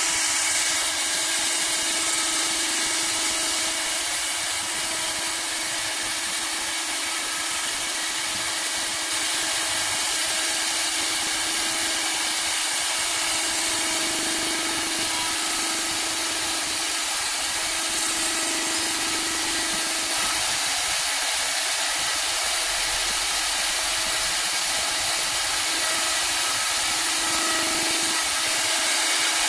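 Three-head CNC wood lathe cutting three spinning wooden balusters at once: a steady hiss of wood being shaved over a low, even machine hum.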